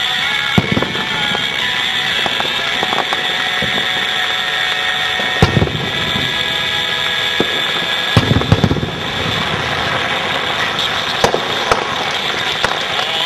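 Fireworks shells bursting: a bang under a second in, another about five seconds in, a quick cluster of bangs around eight to nine seconds and one more near eleven seconds, over a steady high-pitched hiss.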